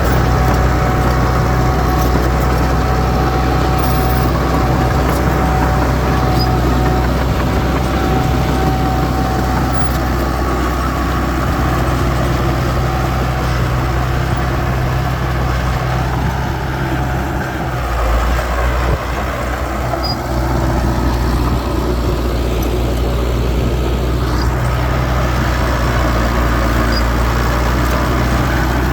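Heavy earthmoving machinery running: the steady, deep engine of a dump truck or bulldozer at work, its note shifting briefly a little past halfway.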